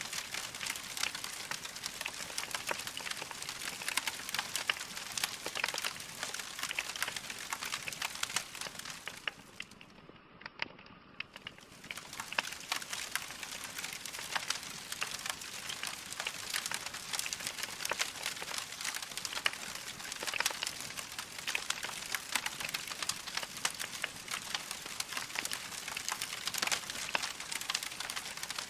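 Wood fire crackling in a fireplace: a steady hiss of flame with many small sharp pops and snaps. About ten seconds in it briefly goes quieter and duller for a couple of seconds, then resumes.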